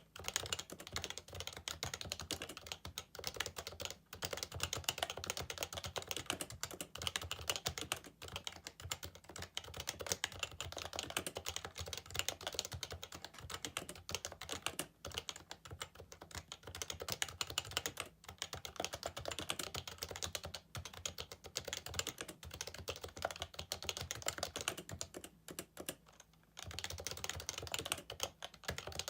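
Fast, continuous typing on a Happy Hacking Keyboard Professional 2 with Topre electrostatic capacitive key switches: a dense run of key strokes, broken by a few short pauses, the longest about 25 seconds in.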